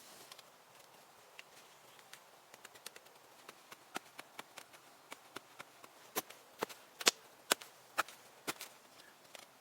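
Sharp knocks of a tool striking wood. Faint and scattered at first, then a steady run of louder strikes about two a second from about six seconds in.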